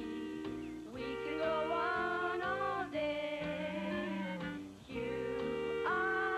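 A woman singing a bouncy song with instrumental backing.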